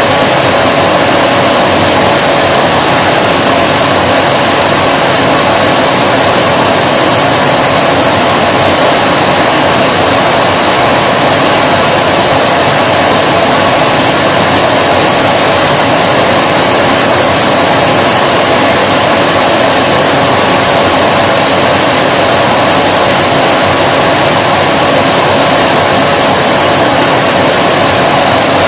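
Vacuum cleaner running continuously: an even rush of air with a steady motor whine, unchanging in pitch and level.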